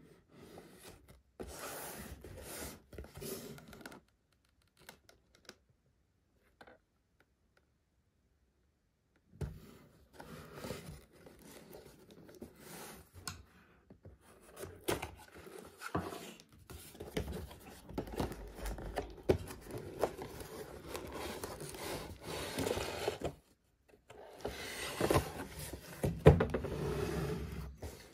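Cardboard packaging being handled and slit open with a screwdriver: scraping and tearing at the box's seal, with rustling and crinkling of cardboard and paper. A few seconds of handling come first, then a pause of several seconds with almost nothing to hear. After that comes a long stretch of scraping and tearing, with a louder rustle near the end.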